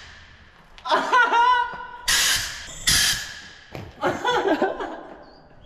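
A salvaged fire extinguisher, pulled from the canal still pressurised, lets off two short, loud hisses of gas about two and three seconds in.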